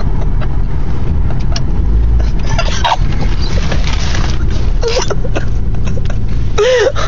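Truck engine and road noise heard from inside the cab while driving: a steady, loud low rumble, with a few short voice sounds over it.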